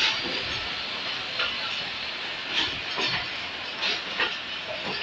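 Passenger train rolling slowly out of a station, heard from an open coach doorway: a steady rushing noise with the wheels clicking over rail joints and points about once a second, unevenly spaced.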